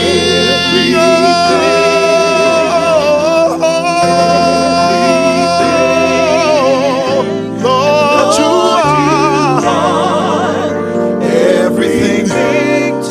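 Gospel worship song: singing with long held notes and wide vibrato over instrumental accompaniment, the bass notes changing every few seconds.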